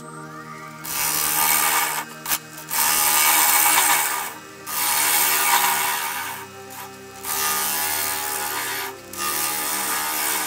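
A gouge cutting into a spinning dried cherry bowl blank on a wood lathe: a loud scraping hiss in about five passes of one to two seconds each, with short breaks between them.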